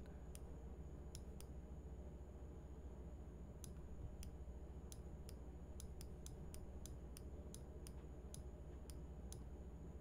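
Faint, irregular light clicks from a computer mouse, about eighteen of them, over a steady low hum.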